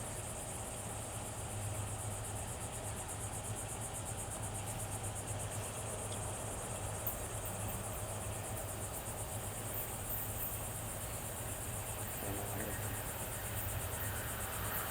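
Insects chirping in a steady, fast, high-pitched pulsing chorus, over a low steady hum.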